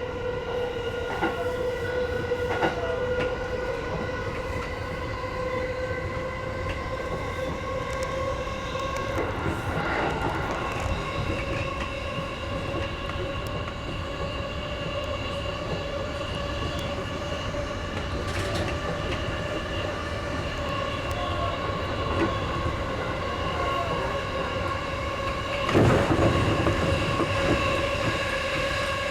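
E233-series electric train heard from inside the leading car, running between stations: a steady motor whine that slowly rises in pitch as the train gains speed, over constant wheel-on-rail rumble and clatter. A louder rush of noise comes about 26 seconds in.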